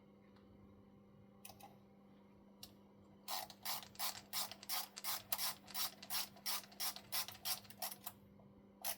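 A hand screwdriver driving a small screw into a fifth wheel plate on an RC truck chassis: a few single clicks, then from about three seconds in a run of regular clicks at about three or four a second, typical of a ratcheting screwdriver.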